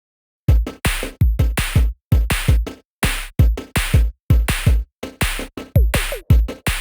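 Electronic background music with a drum-machine beat and deep, pitch-dropping kick drums, starting about half a second in.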